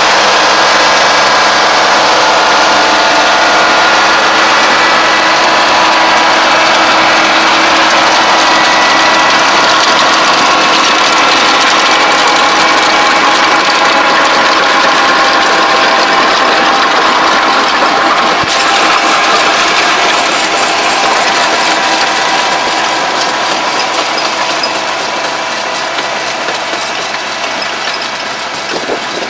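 Diesel engine of a rubber-tracked farm tractor running steadily under load, with its rear rotary tiller and ridge-forming mulch rig turning soil, close by and then fading as the tractor draws away down the row in the last several seconds.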